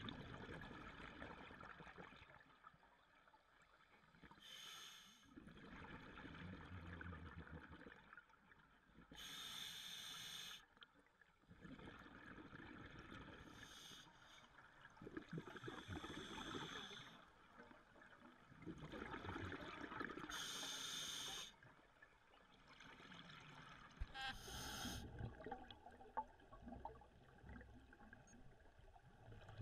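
Scuba diver breathing through a regulator underwater: a hiss on each inhalation about every four to five seconds, with bubbling exhalations in between.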